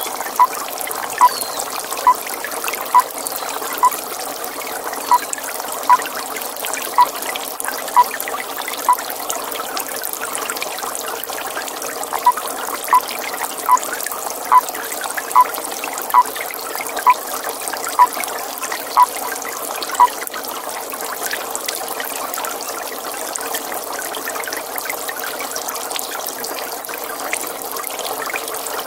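A toad calling in series of short, evenly spaced notes, about one a second: one run ends about nine seconds in, and a second runs from about twelve to twenty seconds in. Steady trickling water runs underneath.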